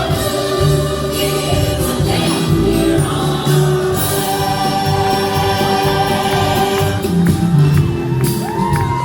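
Music from a live stage show, with a group of voices singing together.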